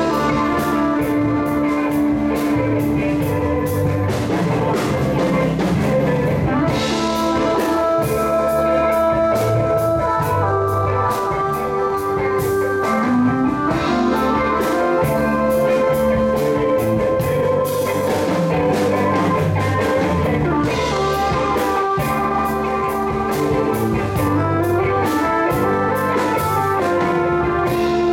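Live band playing an instrumental number: electric guitars and a stage keyboard over a drum kit. Held keyboard and guitar notes move in melodic lines over a steady beat of cymbal and drum strokes.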